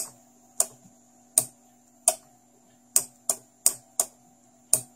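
A relay on an eight-channel relay module clicking on and off nine times at an uneven pace, over a faint steady hum. The relay is the switch that turns the mower's petrol engine on and off from the radio transmitter.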